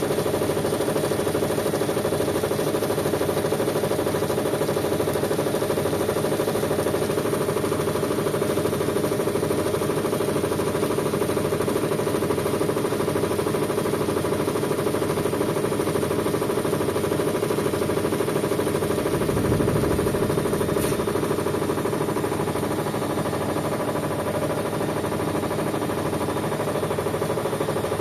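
Whirlpool washing machine running: a steady motor hum with a slow, even pulsing in the low end, and a brief low surge about twenty seconds in.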